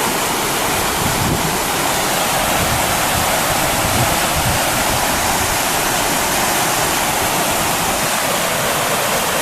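Steady, loud rush of a fast-flowing river running over rocks.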